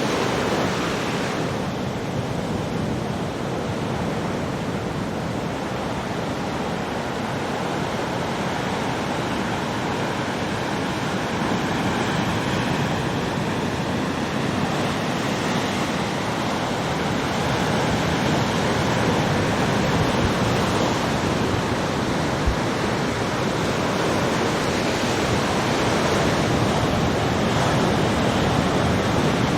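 Ocean surf: large waves breaking continuously in a steady rumbling wash that swells and eases slowly, with wind. A brief thump about two-thirds of the way through.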